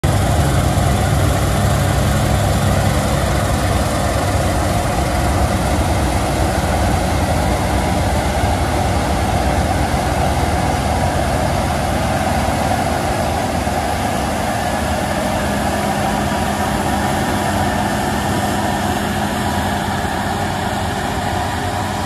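A Fendt IDEAL 10T combine running steadily under load as it harvests wheat: its MAN 16.2-litre engine and threshing gear make a steady heavy drone.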